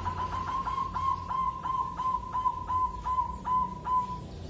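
Zebra dove (local Indonesian perkutut) singing a run of short, clear cooing notes. The notes come quickly at first, then slow to about three a second and stop about four seconds in.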